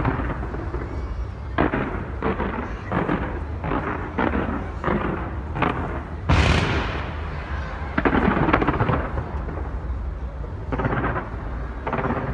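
Aerial fireworks going off in a rapid series of bangs and crackling bursts over a continuous low rumble. The sharpest, loudest bang comes about six seconds in.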